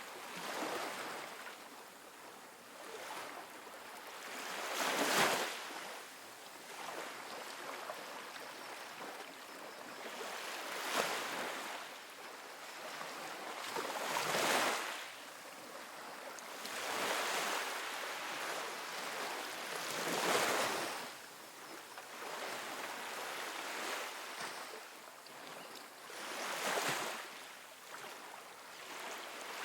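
Soft ocean waves breaking and washing up onto a sandy beach, a surge of surf every three to six seconds, the strongest about five seconds in and again about twenty seconds in.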